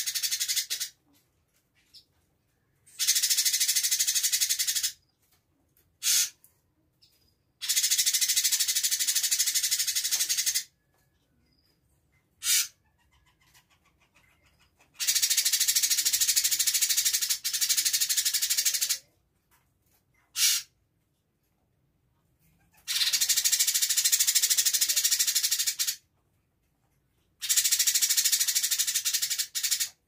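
Cucak cungkok leafbird singing a high, rapid chattering rattle, mimicry of an indigobird's chatter, in about six bursts of two to four seconds with silent pauses between. Single short calls come in some of the gaps.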